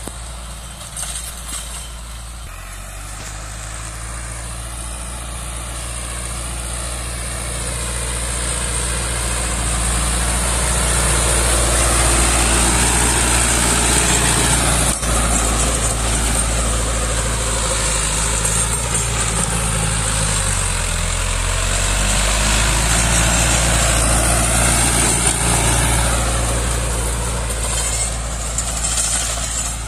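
Sonalika tractor's diesel engine running steadily as it pulls a rotary tiller through the soil, growing louder as it passes close by through the middle and fading again near the end.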